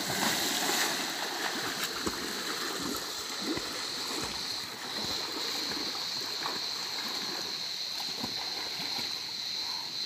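A person jumping into a pool of water with a splash at the very start, then the lighter splashing of swimming strokes. Underneath is the steady rush of a waterfall and a steady high insect buzz.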